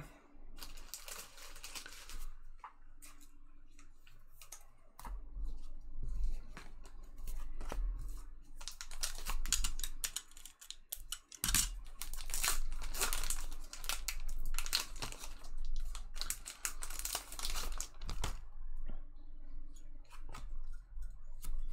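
Foil trading-card pack wrappers being torn open and crinkled by hand, with cards rustling as they are handled and flipped through.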